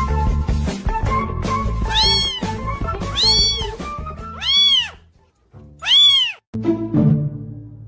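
Young kitten mewing four times, each a short high cry that rises and falls in pitch, over background music.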